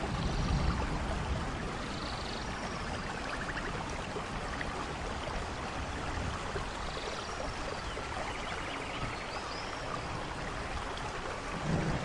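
Nature ambience of steady rain and falling water, a continuous even hiss, with short bird chirps and trills several times. A low thunder rumble fades away in the first second and another begins near the end.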